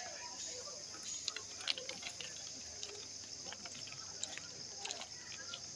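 Steady high-pitched drone of forest insects, with irregular light clicks and ticks over it.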